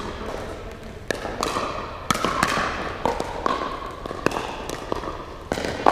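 Pickleball rally: paddles striking the hollow plastic ball and the ball bouncing on the hard court, a string of sharp pops about every half second, each echoing in the large hall.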